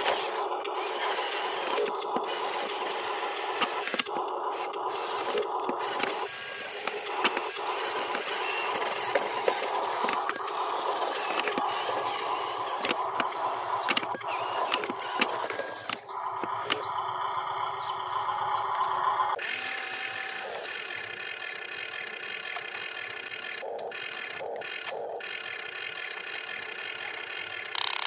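Electric drive motor and gearbox of an RC dump truck whirring as it drives, changing pitch in stretches, with light clicks and scraping from the wheels on dirt and dry leaves.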